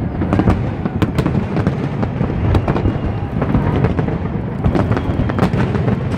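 Fireworks display going off: a continuous low rumble of shell bursts with many sharp cracks and bangs scattered irregularly through it.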